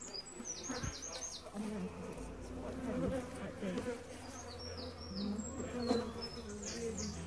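Honeybees buzzing around an open hive, a steady hum with a few soft knocks. A bird in the background sings three short runs of quick, high, falling notes.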